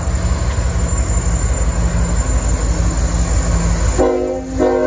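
Freight train rumbling steadily past on the rails. About four seconds in, a locomotive air horn sounds a chord, breaks off briefly and sounds again.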